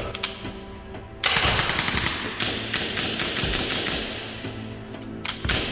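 Milsig M79A2 high-pressure-air foam dart blaster firing: a single shot, then about a second in a rapid burst of air-powered shots lasting a few seconds, and a couple more shots near the end, over background music. The burst is a malfunction of the blaster, not a clean burst of fire.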